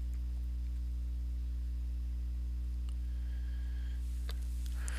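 Steady low electrical hum with its overtones, with a faint click about four seconds in.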